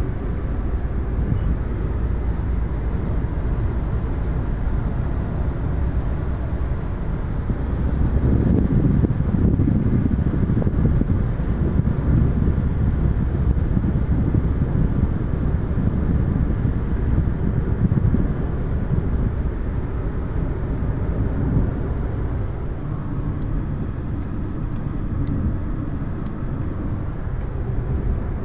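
A car driving along a highway, heard from inside the cabin: a steady low rumble of tyres and engine, swelling a little about eight seconds in.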